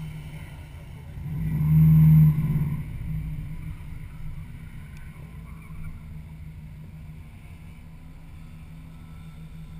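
Subaru Impreza WRX's turbocharged flat-four idling steadily, heard from inside the car, with a loud burst of engine revving lasting about a second, about two seconds in.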